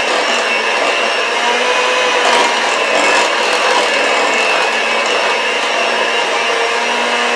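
Electric hand mixer running steadily, its beaters mixing thick muffin batter in a stainless steel bowl.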